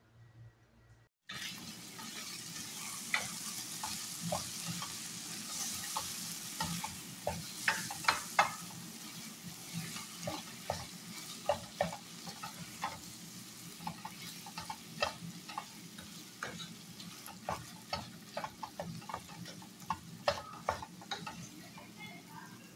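Diced chicken breast sizzling in a frying pan while a wooden spatula stirs it, with frequent clicks and scrapes of the spatula against the pan. The sizzle starts about a second in, after a brief quiet stretch.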